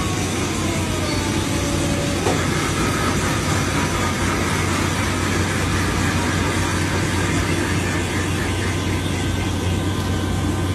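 Steady machinery drone with a strong low hum as an airliner's main landing gear is swung down in a hangar gear test, with a faint falling whine in the first two seconds and a brief knock about two seconds in.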